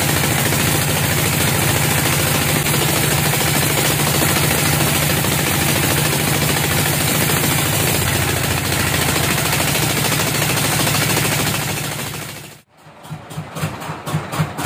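Large band sawmill running and cutting through a big teak slab: a loud, steady whir with a low hum underneath. Near the end the sound cuts off abruptly and gives way to a quieter, rhythmic pulsing of machinery.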